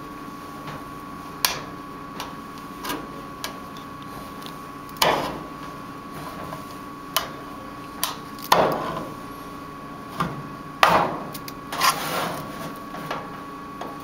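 A kitchen knife's blade stabbing into and levering around the thin steel lid of a food can: irregular metallic clicks and knocks, about a dozen, with the louder strokes ringing briefly. A faint steady hum runs underneath.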